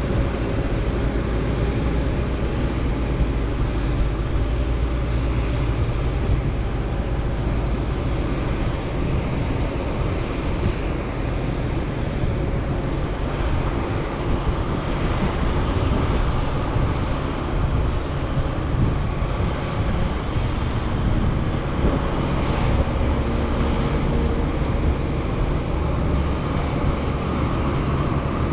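Heavy diesel farm machinery running steadily under load during corn silage chopping, a continuous deep engine drone.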